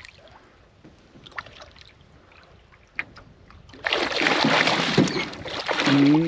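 A large lake trout thrashing and splashing at the surface right beside a canoe as it is played to the boat. It starts suddenly about four seconds in, after a quiet stretch with a few faint clicks.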